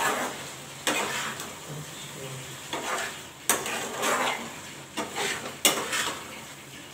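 Metal spatula stirring egg masala curry in a stainless steel frying pan, scraping and clinking against the pan several times over a faint sizzle from the simmering curry.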